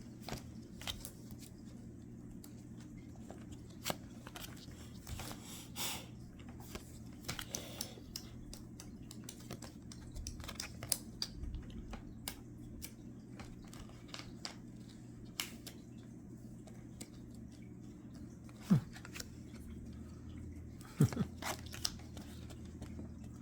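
Trading cards being handled and flipped through: soft rustling with scattered light clicks and taps as cards slide off the stack and are set down, over a steady low hum. Two sharper knocks come near the end.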